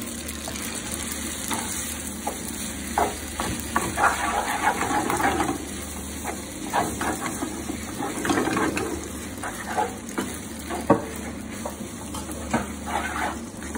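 Wooden spatula stirring spaghetti and cream in a frying pan on the heat: irregular scrapes and knocks against the pan over a steady sizzle.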